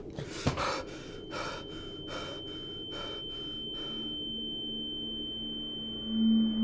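A man gasping and breathing hard, about six quick breaths that fade out after about four seconds, with a thump about half a second in. A thin, steady high-pitched ringing tone runs under the breaths, and a low drone comes in after about four seconds.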